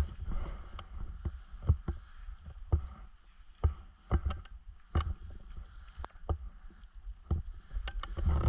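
Footsteps on dry fallen leaves and undergrowth: an uneven run of short rustling steps, with a low rumble of movement noise on the camera's microphone and one sharp click about six seconds in.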